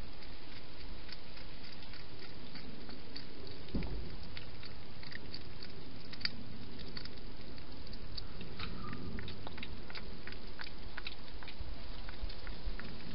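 A hedgehog eating, with scattered small crunching and smacking clicks of its chewing over a steady hiss.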